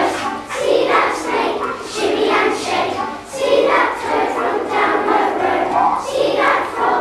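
A group of young children singing together in unison, in loud phrases that follow one another every second or so.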